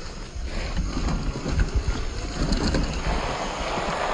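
Wind buffeting the microphone: an uneven low rumble under a rushing hiss that grows stronger about a second in.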